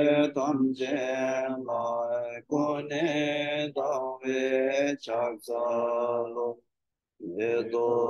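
A Buddhist lama's male voice chanting a mantra-like recitation in a steady, sing-song rhythm of held syllables. It stops briefly a little before the end, then carries on.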